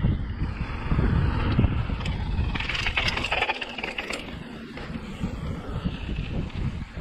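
Mountain bike rolling fast down a dirt flow trail: tyre rumble over the ground, the bike rattling with a cluster of knocks about three to four seconds in, and wind buffeting the camera microphone. The noise is loudest for the first two seconds and eases after that.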